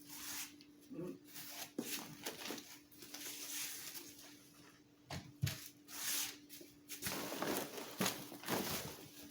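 Packaging being handled: irregular rustling and crinkling with a few light knocks, over a faint steady hum.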